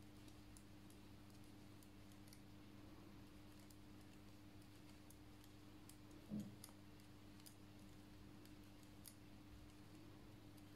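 Faint, irregular light clicks of steel double-pointed knitting needles tapping together as knit stitches are worked in the round, over a low steady hum. A brief soft bump about six seconds in.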